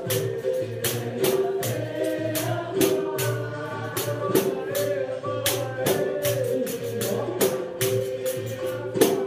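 Capoeira music: a pandeiro struck in a steady rhythm, its jingles ringing on each stroke, with a voice singing over it.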